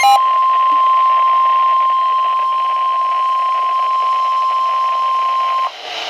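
NOAA Weather Radio's 1050 Hz warning alarm tone, one steady high tone, coming through a Midland weather alert radio's speaker and cutting off shortly before the end, announcing a tornado warning. The radio's own pulsing alarm beeps stop right at the start.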